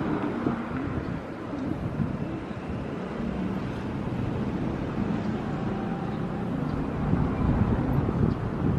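A vehicle running, a steady mechanical noise with a low hum that strengthens in the second half.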